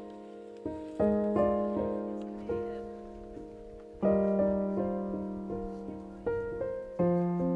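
Background piano music: slow chords struck every few seconds, each dying away before the next.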